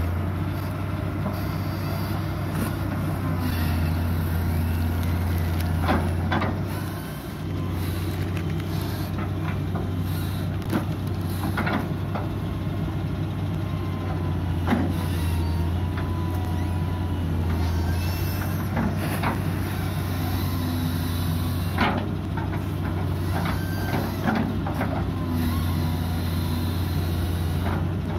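Hitachi UH083 long-arm excavator's diesel engine running steadily as it works, with short knocks and clanks from the bucket and arm several times, and a few brief whines.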